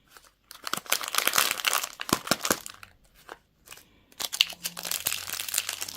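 Crinkly plastic wrapper being crumpled and torn, in two long stretches with a short pause in the middle.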